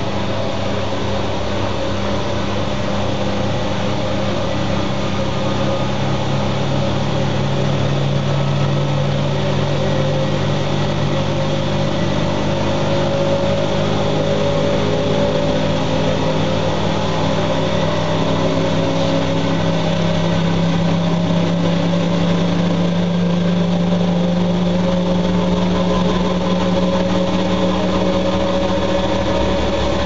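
Siemens Siwamat washing machines running: a steady motor hum and whine whose tones climb slowly in pitch as a drum speeds up.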